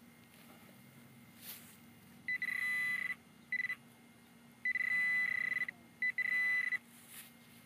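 A metal detecting pinpointer probing a dug hole for a second coin and sounding a buzzy, high electronic tone in four bursts: short, very brief, about a second, then short again. The alert signals metal close to the probe tip.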